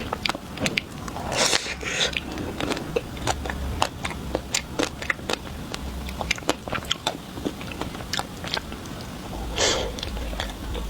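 Close-miked eating of chocolate ice cream: bites and chewing with many sharp crunchy crackles, and two longer, louder noisy swells, one about a second and a half in and one near the end.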